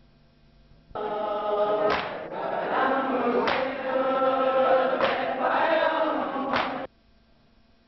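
A group of men chanting a nauha (mourning lament) in unison, with a sharp beat about every second and a half. It starts suddenly about a second in and cuts off abruptly about a second before the end, over faint videotape hiss.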